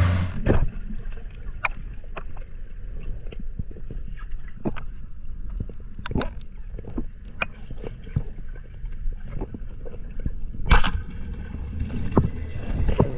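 Underwater sound as heard through a camera housing: a low muffled rumble with many scattered sharp clicks and pops, and one louder pop about eleven seconds in.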